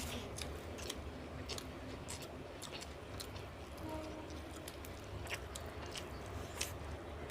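People eating fried fish and rice by hand: soft chewing with irregular, short wet clicks of mouths and fingers.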